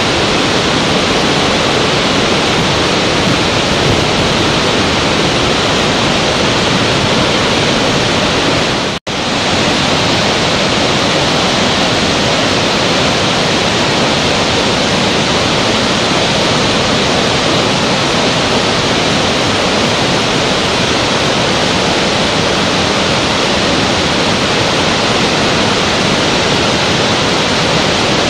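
Large waterfall and rapids: a steady, loud rush of falling water. It cuts out for an instant about nine seconds in, then resumes unchanged.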